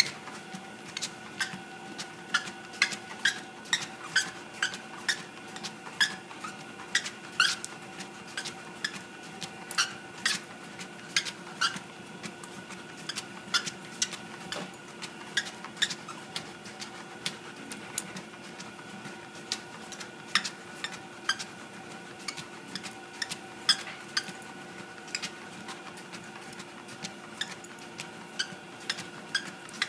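Treadmill running with a steady motor whine while a dog's claws click irregularly on the moving belt, about one or two clicks a second.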